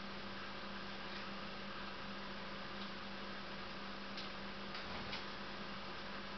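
Steady electrical mains hum over a faint hiss, with a few faint short ticks, most of them between about four and five seconds in.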